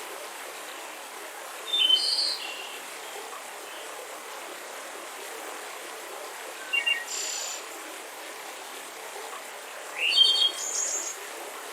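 Songbirds singing short chirping phrases, three times about four seconds apart, over the steady rush of a mountain river.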